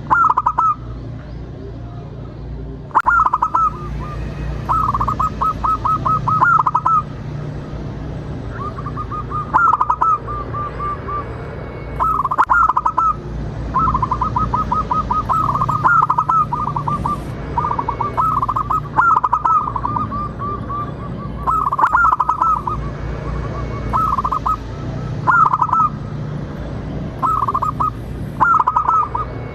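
Zebra doves cooing: short phrases of rapid staccato coos, repeating every second or two, over a steady low hum.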